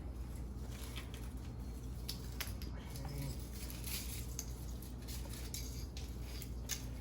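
Small metal clicks and scrapes as scrap breaker parts are handled and picked apart by hand, over a steady low hum.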